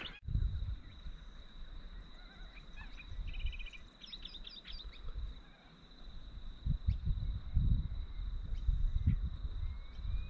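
Riverside outdoor ambience: a steady high-pitched insect-like drone, a few bird chirps and a short trill a few seconds in, over repeated low rumbling thumps on the microphone that are loudest at the start and in the second half.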